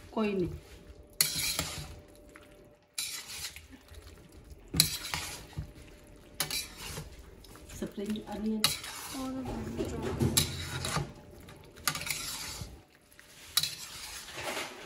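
A utensil stirring vegetable manchurian balls in sauce in a steel wok, scraping and knocking against the metal every second or two over a light sizzle.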